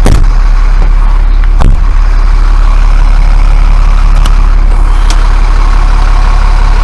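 Motorhome diesel engine idling steadily with a deep hum. A sharp knock at the start and another under two seconds in come from the coach's storage compartment doors being shut and opened.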